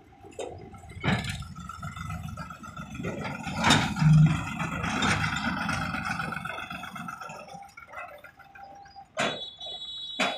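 Sonalika DI 750 tractor's diesel engine running as it pulls a loaded tipping trailer over sand, with a few sharp knocks.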